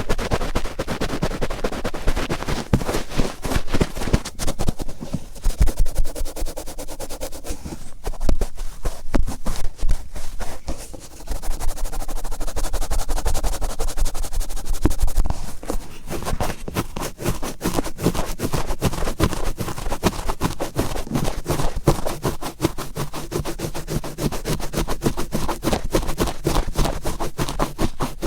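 Cotton swab rubbed and twisted firmly in the ear close to the microphone: a dense, continuous run of scratchy rubs and crackles.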